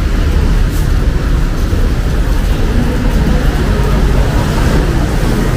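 Steady low rumble of city road traffic passing on a busy street.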